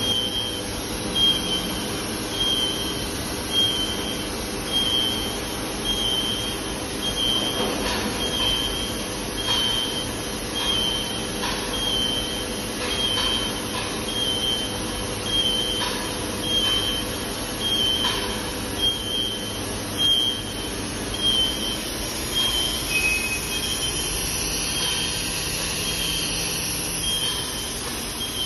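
Machine-shop machinery running steadily, with a short high electronic warning beep repeating a little less than once a second and scattered clicks and clanks.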